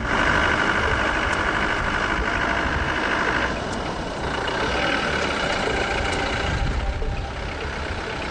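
Safari vehicle's engine running, a steady low rumble; a brighter, higher layer of sound over it drops away about three and a half seconds in.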